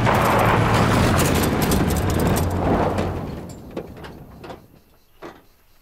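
A vintage car's engine running, with tyre noise on a gravel road, loud for about three seconds and then fading away. A few faint knocks follow near the end.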